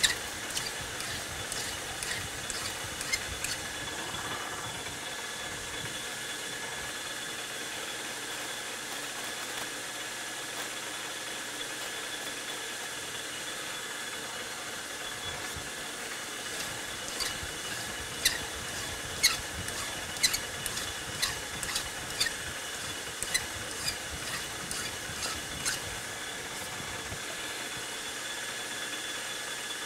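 Metal lathe running steadily with a high whine, spinning a part turned from 3/8 steel drill rod. Past the middle comes a run of sharp clicks or scrapes, about one a second.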